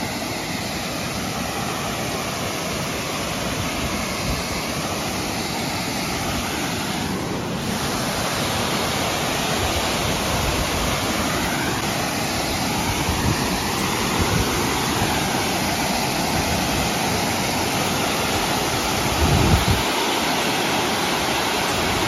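Steady rushing of fast, rain-swollen water from a stream and a waterfall, growing a little louder toward the end. There is a brief low bump near the end.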